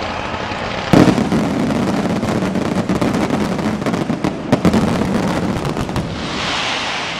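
Fireworks display: a loud bang about a second in, followed by dense crackling and a second bang around four and a half seconds, fading into a hiss near the end.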